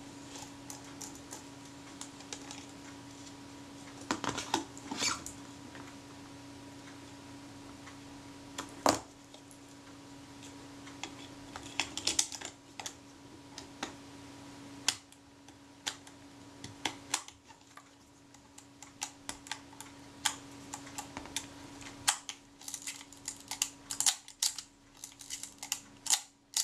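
Small clicks and taps from a Kodak Retina IIC camera being handled and adjusted by hand. They are scattered at first and come quickly in a run near the end, over a faint steady hum.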